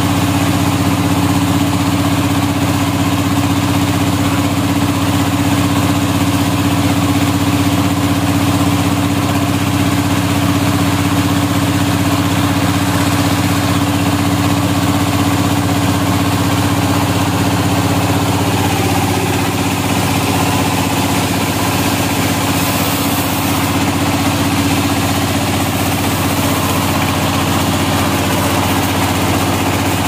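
Band sawmill's drive running steadily without load, a constant loud mechanical hum that does not change in pitch. The blade is not cutting while the log is being set on the carriage.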